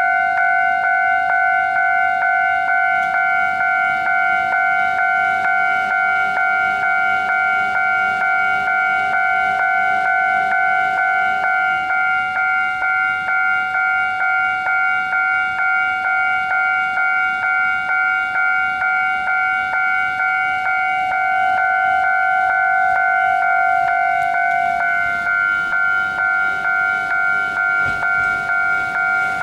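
Japanese railway level-crossing warning bell ringing steadily in evenly repeated electronic clangs, signalling an approaching train.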